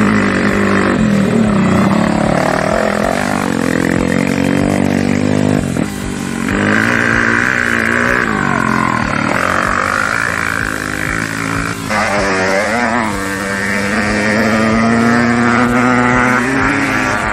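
Off-road race vehicle engines running hard and passing, pitch rising and falling as they rev through the gears. The sound changes abruptly about six and twelve seconds in, as a new vehicle takes over.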